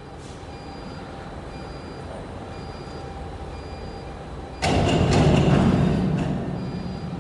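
CNC panel bender running, a steady hum with a faint high tone repeating about every half second. About four and a half seconds in, a sudden loud mechanical clatter and rush from the machine's moving parts swells and fades over about two seconds.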